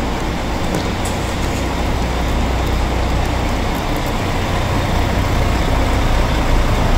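Coach bus engine idling steadily, a constant low hum under a wash of noise.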